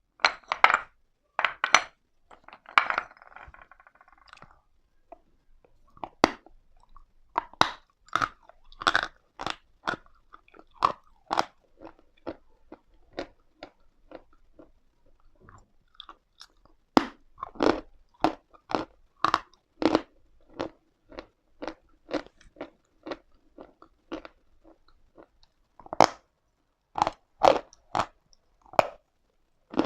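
A person biting into and chewing pieces of chalk. A few loud crunching bites open the sound, then comes steady crunchy chewing at about two to three chews a second, with a short pause about three quarters of the way through.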